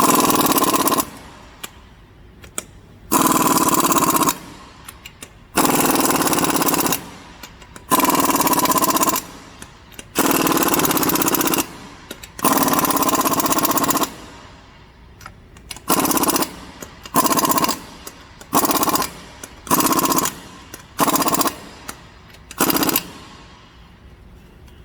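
Impact wrench hammering lug nuts tight in a star pattern: six runs of a second or so each, then six short bursts as each nut is snugged down.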